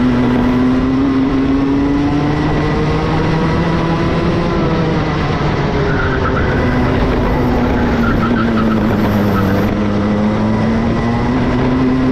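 Two-stroke racing kart engine running at speed, its pitch rising and falling with the throttle: climbing for the first few seconds, dropping about halfway, dipping again later and climbing toward the end, over a steady rush of noise.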